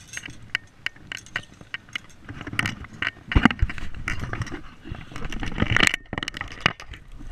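Handling noises of netting a pike from the bank: clicks, scrapes and clinks of the metal landing-net handle and gear, with the loudest knocks about halfway through and again towards the end.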